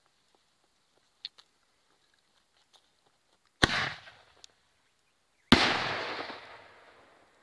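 A 2-inch canister firework shell fires. A sharp bang launches it from its mortar, and about two seconds later a second bang bursts it high up, its echo fading away over nearly two seconds.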